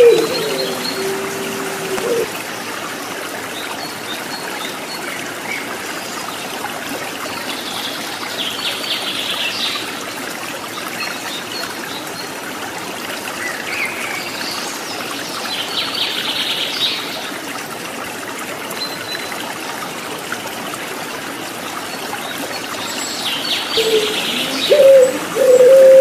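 Steady trickle of running water, with small birds chirping in three short bouts. A puter pelung (ringneck dove) coos briefly at the start and again near the end, louder than the water.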